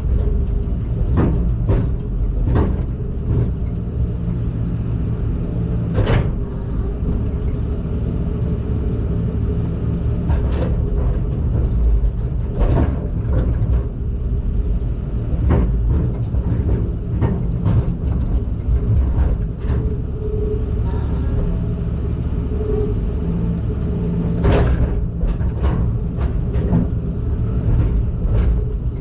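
Heavy machine engine running steadily with a low rumble. Sharp knocks or clanks come now and then, the loudest at about six seconds in and near the end.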